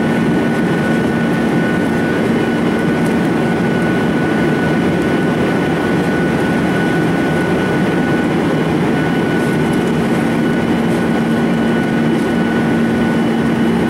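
Steady cabin noise inside a Boeing 737-800 in flight, heard from a window seat beside the wing: the CFM56-7B turbofans and rushing air make an even drone with a constant low hum and a thin high whine.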